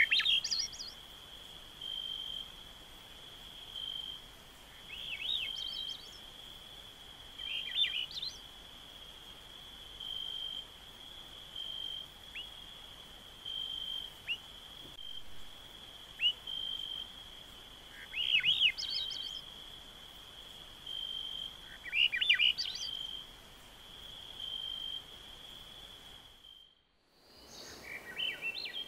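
Swainson's thrush singing its rising, spiralling flute-like phrases, five of them spaced several seconds apart, with faint short call notes between. A steady high-pitched insect trill runs underneath and cuts out near the end.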